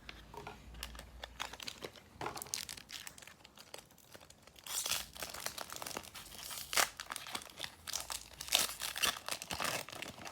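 Foil wrapper of a Pokémon booster pack being torn open and crinkled: light scattered rustles at first, then denser crinkling from about halfway.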